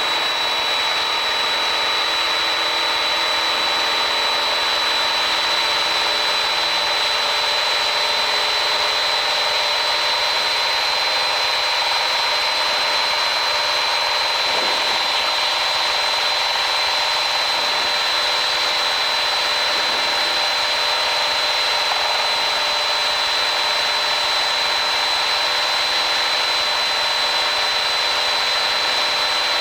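Piper PA-28-161 Warrior's four-cylinder Lycoming engine and propeller running steadily at climb power just after takeoff, heard inside the cabin as a constant drone with a steady high-pitched whine over it.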